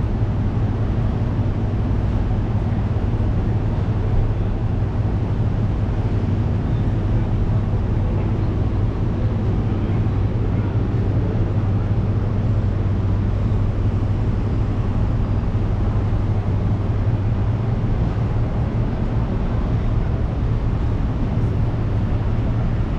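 Steady street noise dominated by a low, even engine hum, like a large vehicle idling close by.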